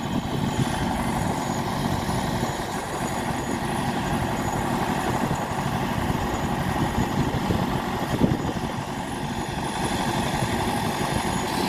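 Vintage Nuffield tractor engine running steadily, belt-driving a saw bench through a long flat belt. A single sharp knock about eight seconds in.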